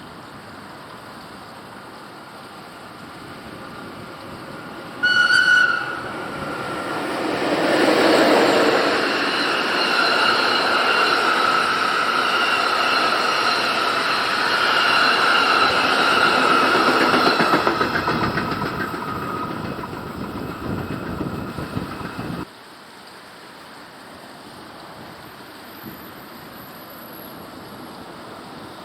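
A train passing close by: a brief loud high tone about five seconds in, then the rumble and clatter of the train going past with a steady high squeal over it. The sound fades and cuts off abruptly about 22 seconds in, leaving faint background noise.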